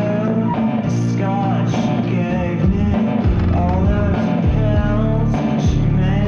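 A rock song: a singer holding long, wavering notes over electric guitar, bass and drums.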